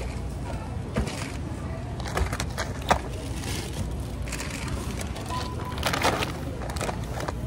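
Groceries being bagged at a store checkout: plastic bags crinkling and items knocking down against a steady store hum, with a couple of short beeps in the second half.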